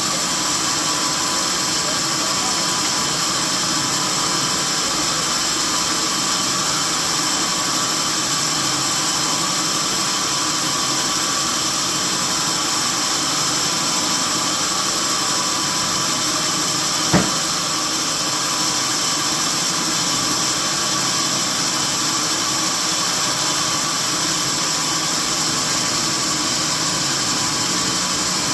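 Sawmill machinery running steadily with a constant drone and hum, with one sharp knock about seventeen seconds in.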